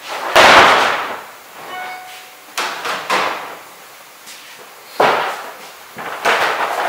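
Hollow bangs and knocks of a large moulded plastic portable-toilet wall panel being handled and bumped against the base and door. The loudest bang comes about half a second in, followed by a few lighter knocks.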